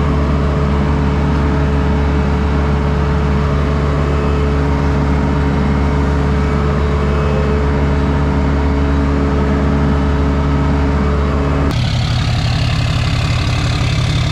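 Skid steer engine running steadily, heard from inside its cab. About twelve seconds in, the sound cuts abruptly to a different, lower engine drone.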